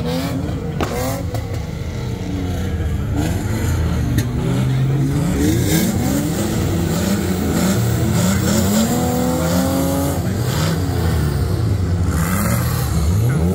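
Drift cars' engines revving hard, the pitch rising and falling again and again as the throttle is worked, with more than one engine heard at once.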